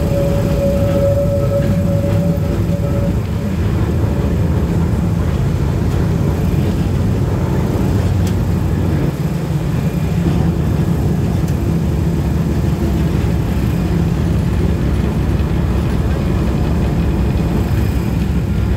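Historic Santa Teresa electric tram running along its rails: a steady, loud rumble and rattle of the moving car, with a steady whine held for the first three seconds or so.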